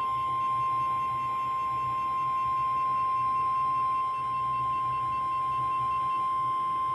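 NOAA Weather Radio 1050 Hz warning alarm tone: one steady, unbroken high tone over a faint low hum. It signals that a warning message is about to be broadcast, here a severe thunderstorm warning.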